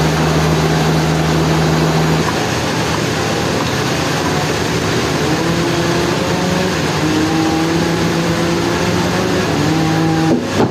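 Sawmill machinery running: a loud, continuous mechanical din. A steady low hum shifts about two seconds in, and the sound briefly drops out near the end.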